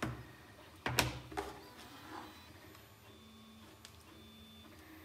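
Metal tins being handled and set down: a sharp knock at the start, a louder clatter of three or four knocks about a second in, then a few light taps.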